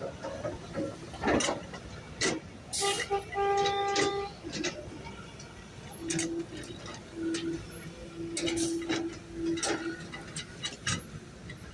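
Road traffic with vehicle horns: one horn sounds for about a second around three seconds in, and a lower horn toots several times in a row from about six to ten seconds in, among sharp clanks and knocks.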